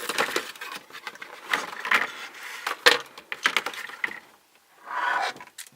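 Toy packaging being handled: irregular clicks and crinkling rustles of plastic and card, which pause about four seconds in, then one more short rustle near the end.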